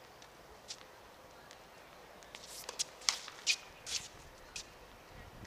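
Tennis shoes scuffing and squeaking on a hard court as a player moves, a quick cluster of sharp scuffs with one brief squeak in the middle.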